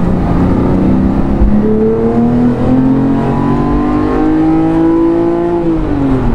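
2018 Porsche GT3's 4.0-litre flat-six running through a Brooke Race Exhaust straight-through system, accelerating: the engine note holds steady briefly, then climbs steadily for about four seconds and drops sharply near the end.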